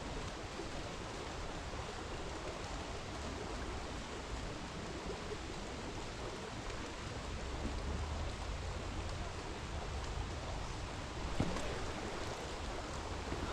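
Steady rushing water noise of a trout stream and falling rain, with a single sharp knock near the end.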